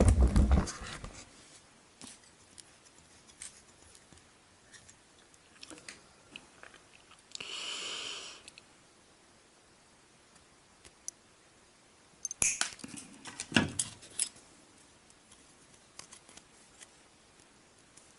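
Small hand-tool sounds of fine model work: scattered light clicks of tweezers and side-cutting pliers on wire, a brief rustle about seven seconds in, and a cluster of sharp clicks with one louder knock around twelve to fourteen seconds in.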